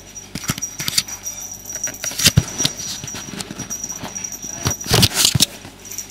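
Kittens at play: a string of scuffs, taps and knocks, with a loud thump about two seconds in and a cluster of heavier thumps around five seconds in.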